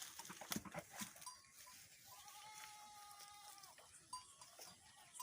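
A young goat bleating once, a single long, faint call, with a few soft knocks shortly before it.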